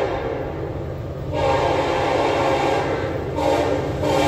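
Norfolk Southern freight locomotive's air horn sounding for a grade crossing as the train approaches. A louder blast starts about a second in and is broken by two short gaps near the end, over a steady low engine rumble.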